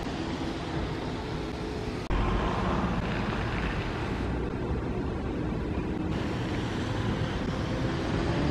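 Van Hool Exquicity 18 hydrogen fuel-cell articulated bus: a steady hum with several held tones while it stands. About two seconds in this changes abruptly to louder, even road and running noise as the bus drives past.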